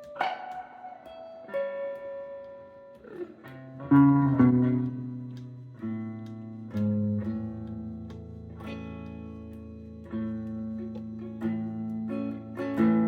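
Instrumental break in a guitar-led song: single picked notes ring out, and a deeper, sustained accompaniment joins about four seconds in.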